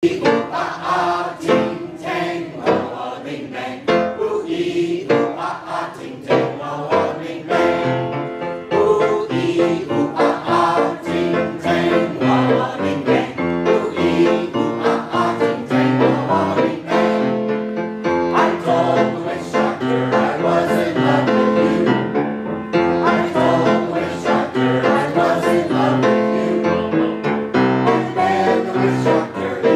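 A mixed choir of men and women singing an upbeat song together, with piano accompaniment.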